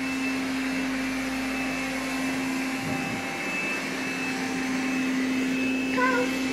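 Small battery-powered stick vacuum running steadily while being pushed over carpet: a steady motor hum with a constant high whine above it.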